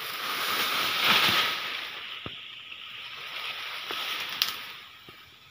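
Durian tree leaves and twigs rustling and brushing together. The rustle swells about a second in and then fades, with a couple of sharp clicks.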